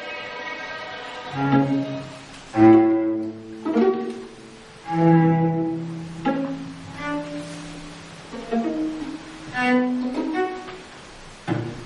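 Small string ensemble of violins and cello playing a contemporary chamber piece: short, separated bowed and plucked notes and brief phrases with gaps between them, and a low cello note held for a few seconds from about five seconds in.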